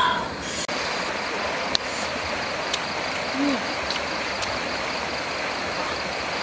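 Night ambience: a steady hiss with an insect trilling on a high pulsing note and a few faint clicks. A short pitched voice-like sound at the very start.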